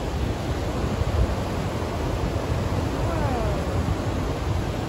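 Kootenai Falls' rapids and cascades rushing, a steady, even water noise, with wind buffeting the microphone at the low end.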